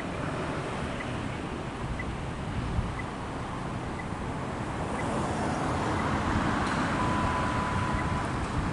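Wind rumbling on the microphone over street traffic, which grows louder about halfway through as a vehicle passes. A short steady beep sounds about seven seconds in, and there is a faint tick about once a second.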